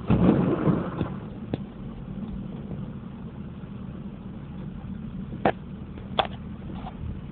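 A vehicle engine running steadily, with a loud rush of noise in the first second and a few sharp clicks later.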